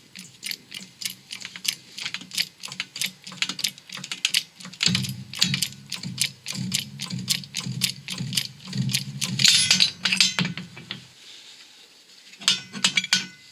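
6-ton hydraulic shop press being pumped by its lever, giving quick repeated metallic clicks as it drives the bush out of a wheel hub, with a low hum under the clicking for several seconds in the middle. The clicking pauses briefly near the end, then starts again.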